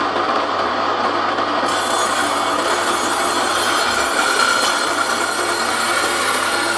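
Bench table saw running and ripping a wooden plank as it is fed through the blade: a steady whine over continuous cutting noise.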